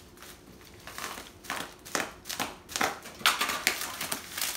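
Bubble wrap crinkling and crackling in the hands, with packing tape being pulled and torn off it in irregular bursts.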